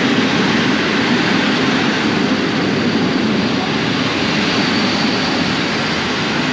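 Train passing close by on the station track: a loud, steady rush of wheel and running noise.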